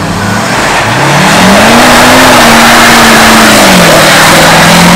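Pickup truck doing a burnout: its engine revs up about a second in, holds high, then drops back near the end, over the loud hiss of the rear tire spinning on the pavement.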